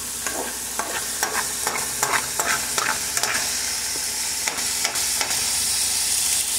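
Sweet peas, diced carrots and onion sizzling in hot oil over high heat, the heat kept up so their water cooks out. A utensil stirs and scrapes them against the pan in short irregular strokes over the steady sizzle.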